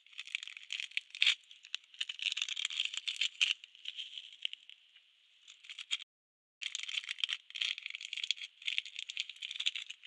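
Rattling: a dense run of small, quick clicks that stops dead for about half a second around six seconds in, then resumes.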